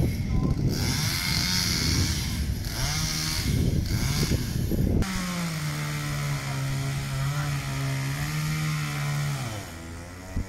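Chainsaw cutting through a fallen tree branch, its engine revving up and down as it bites into the wood. About five seconds in the sound suddenly turns into a steady high-revving engine note, which drops off near the end as the throttle is let go.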